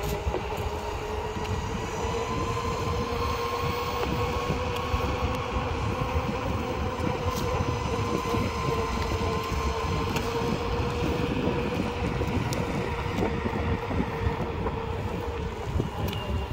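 Longboard wheels rolling over an asphalt path: a continuous rolling rumble with a steady hum, and a few faint ticks from the surface.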